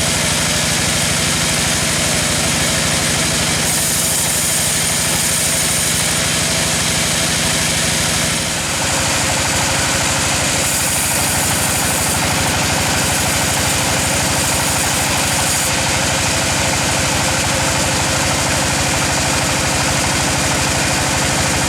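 Sawmill machinery running steadily, an engine-driven saw with a fast even pulse under a dense high hiss. The hiss grows and fades every few seconds, as the saw does while working through the teak log.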